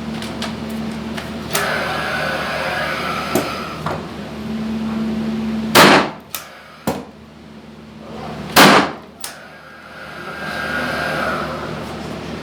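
SPIT Pulsa 800P gas-actuated nail gun firing two nails, about three seconds apart, each a sharp, loud bang, with lighter clicks of the tool being handled and a steady hum between the shots.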